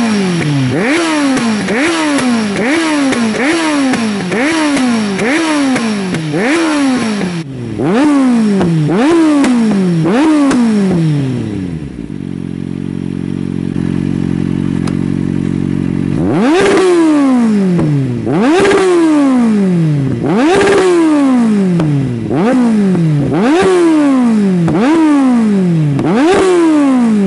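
Kawasaki Z750 inline-four through a MIVV GP slip-on exhaust, revved on the spot: first a fast run of short throttle blips with the dB killer fitted, then, after a break, with the dB killer removed, a few seconds of steady idle and a series of bigger revs about one every two seconds.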